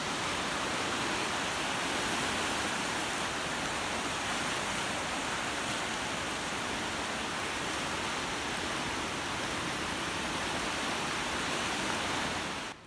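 Steady, even rush of water noise, cutting in and cutting off abruptly.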